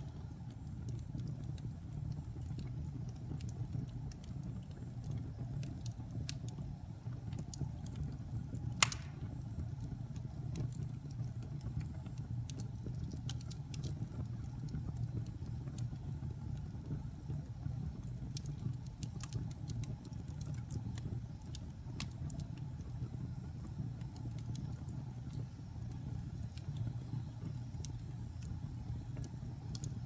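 Fire burning in a fireplace: a steady low rumble of flames with scattered small crackles and one loud pop about nine seconds in.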